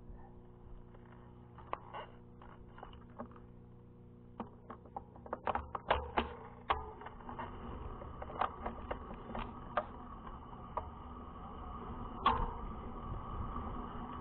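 Irregular sharp clicks and knocks over a low steady hum; they come thickest about five to seven seconds in, and the loudest knock falls near the end.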